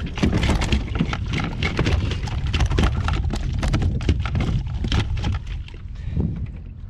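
Wind buffeting the microphone in a steady low rumble, over a dense, irregular patter of splashing water around the kayak.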